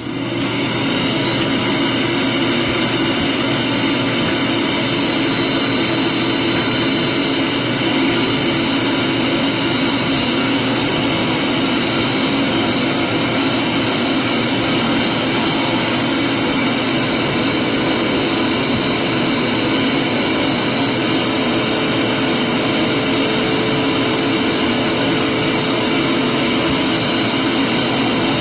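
Vacuum cleaner switched on, its motor spinning up over about the first second, then running steadily with a high whine over a broad rushing noise.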